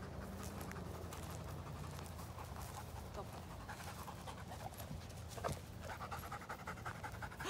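Labrador panting rapidly and evenly, plainest near the end. One short thump comes a little after five seconds in.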